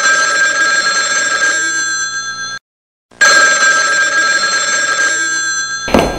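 Telephone ringing: two identical rings, each about three seconds long with a steady, multi-pitched tone that shifts partway through, separated by a half-second pause. A sudden burst of noise follows near the end.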